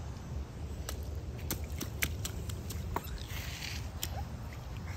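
A toddler's rubber rain boots stepping in a shallow rain puddle: scattered small splashes and drips, with a longer splash about three and a half seconds in, over a steady low rumble.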